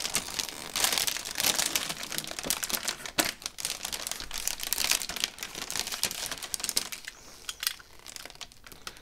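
Anti-static plastic bag crinkling and crackling as it is handled and worked open by hand: a dense run of small sharp crackles that thins out and gets quieter near the end.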